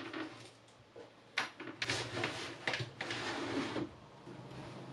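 Hard-shell suitcase being dragged across the top of a wooden wardrobe, scraping with a few sharp knocks, quieter from about four seconds in.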